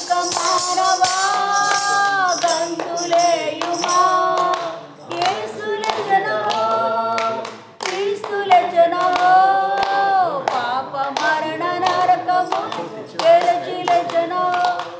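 A woman singing a Christian devotional song, holding long notes, with hand claps keeping time.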